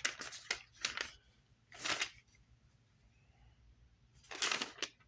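Paper pages of a Bible being turned and handled: several short rustles, a quick cluster at the start, another about two seconds in, and more near the end.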